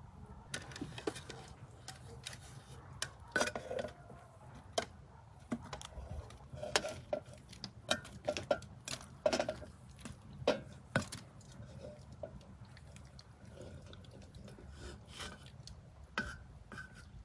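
Metal serving tray and cast-iron cauldron clinking and knocking as roasted goose pieces are moved from the tray into the pot. The sharp clinks come thick and irregular for most of the time, then thin out to a few toward the end as the tray is tipped to pour its juices in.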